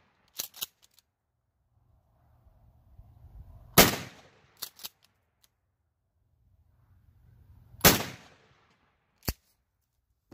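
A shotgun fires slugs through an improved cylinder choke: two loud, sharp shots about four seconds apart. Each shot is followed within a second or so by brief sharp clicks.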